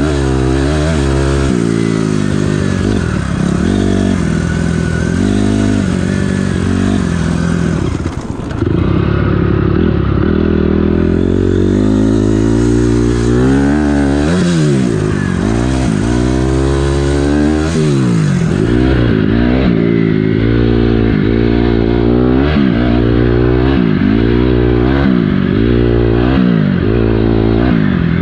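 2006 Honda CRF250R's single-cylinder four-stroke engine running under riding load, its pitch climbing and falling again and again with the throttle. It briefly drops off about eight seconds in before picking up again.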